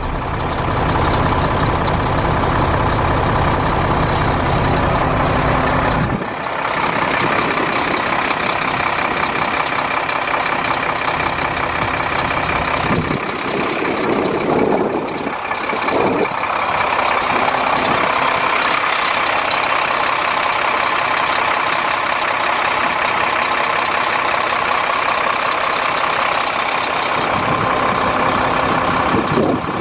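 Mack MP7 10.8-litre inline-six turbo diesel of a 2008 Mack CXU613 semi truck idling steadily. The deep engine rumble drops away abruptly about six seconds in and comes back strongly near the end.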